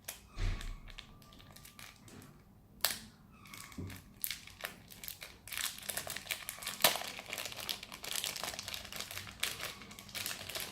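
Rustling, crinkling handling of construction-kit parts as they are picked out and fitted together, with a couple of sharp clicks, about three and seven seconds in, and denser crackling in the second half.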